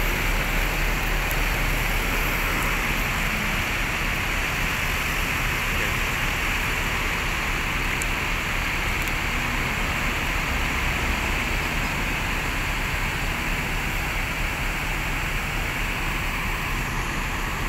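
Steady hissing drone of parked buses idling, with a low hum underneath.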